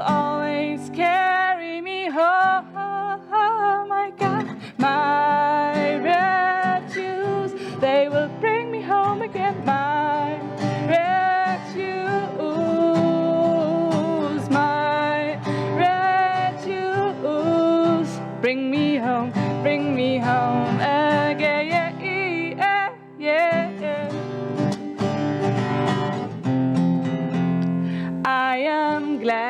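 A hymn-like song sung to strummed acoustic guitar, the voice carrying a bending melody over the chords.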